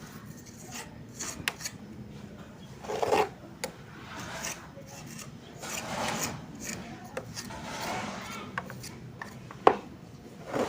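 Scraping and rubbing as wet cement mortar is worked and spread onto a sculpture, in irregular strokes with scattered light taps and one sharp knock near the end.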